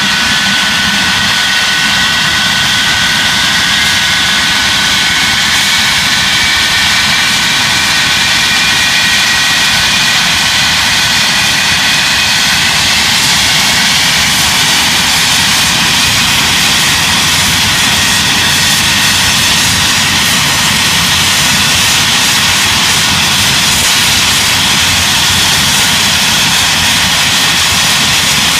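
Lightning jet's engines running loud and steady, their whine slowly climbing in pitch over the first half as the engines spool up for taxiing.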